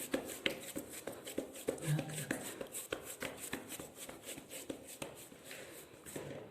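Hands working wet barley dough in a dish: an irregular run of soft slaps and clicks, about two or three a second, fading near the end.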